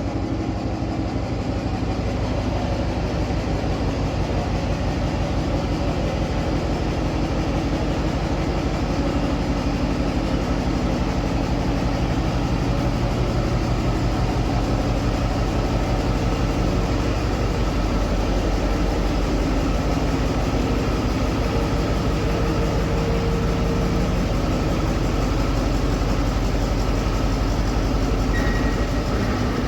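A large engine running steadily, with an even low throb.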